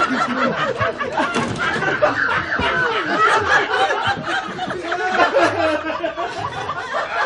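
Several people laughing and giggling at once, voices overlapping.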